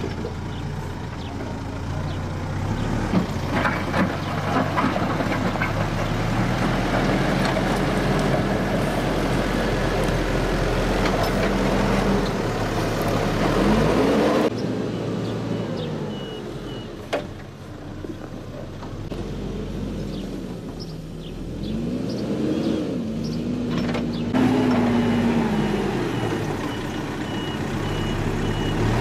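Backhoe loader's diesel engine running and revving up and down under load as its front bucket digs into and pushes soil. A high, evenly pulsed beeping joins over the second half.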